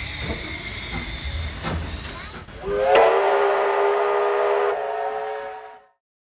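Steam locomotive letting off a loud hiss of steam, then its chime whistle sounds a chord of several notes about three seconds in, swooping up at the start and held for about three seconds before cutting off.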